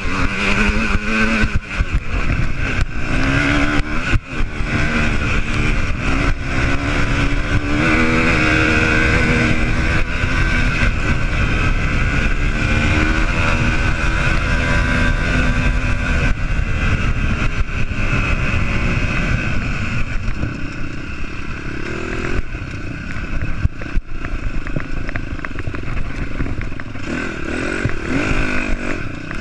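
Off-road dirt bike engine under hard riding, its pitch climbing and dropping again and again as the throttle is worked. After about twenty seconds the engine runs lower, in shorter bursts of throttle.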